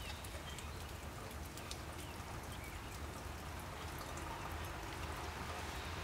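Steady rain with many scattered drops ticking, over a low steady hum.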